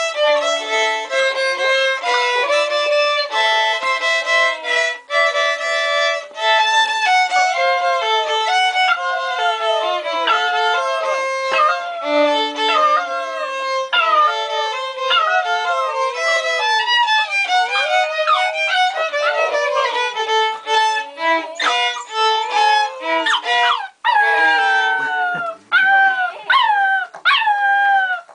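Violin playing a tune while a litter of six-week-old English Springer Spaniel puppies howl and whine along. The puppies' wavering calls join a few seconds in and grow stronger, with long falling howls loudest near the end.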